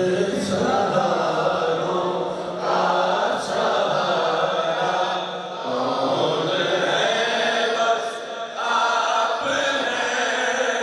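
A man's voice singing a naat, an Urdu devotional poem praising the Prophet, through a microphone in long drawn-out phrases with short breaks between them.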